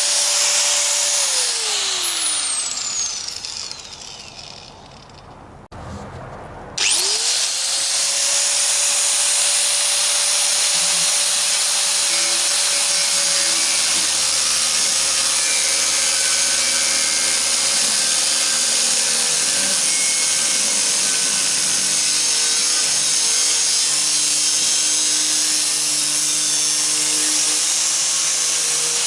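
Electric power tool motor running with a loud hiss, winding down and stopping about a second in, then starting up again with a quick rising whine near seven seconds and running steadily to the end, as when cutting the sheet metal of an 18-litre oil can.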